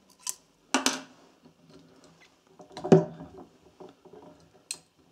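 Scattered clicks and knocks of metal tools and hands against a motorcycle engine as it is handled, with two louder knocks about one second and three seconds in.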